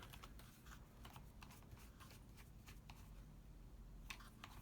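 Faint, irregular small clicks and taps of a screwdriver threading the belt-clip screw into the impact wrench's housing, with the clip and tool being handled.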